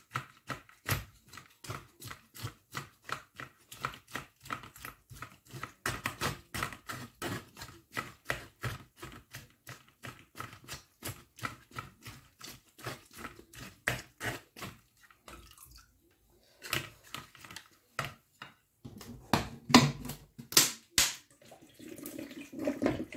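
Wooden spatula pressing and scraping squeezed lemon pieces against a metal mesh strainer, wringing the juice through: a quick, steady run of short scrapes about four a second, a brief pause, then a few louder strokes near the end, with some wet squelching.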